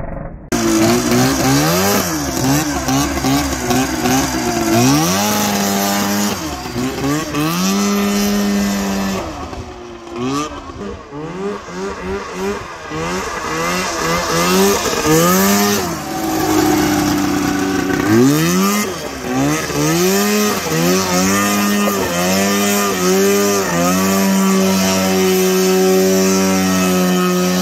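Custom racing lawnmower's 488 two-stroke twin engine revving hard and repeatedly, the pitch sweeping up under throttle and dropping as it backs off. Near the end it holds a steady high pitch at sustained full throttle.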